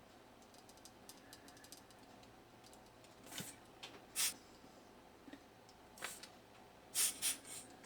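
Small hand tools clicking and scraping on a trackball mouse's circuit board while its old switches are desoldered: a run of faint ticks, then a few short, sharp clicks spaced a second or so apart, with a quick cluster near the end.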